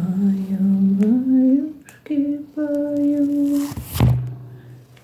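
A woman humming a lullaby tune in long held notes that step up in pitch, then a short loud rustle about four seconds in. A cat's steady purr runs underneath, plainest after the humming stops.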